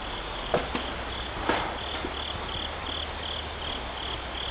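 Crickets chirping steadily in high, even pulses, about three a second, with a couple of brief knocks in the first two seconds.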